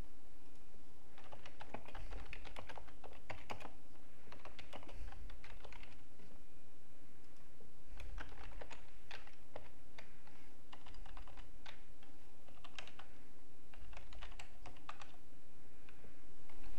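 Typing on a computer keyboard: quick runs of key clicks in four or five bursts separated by short pauses, as address details are typed into form fields.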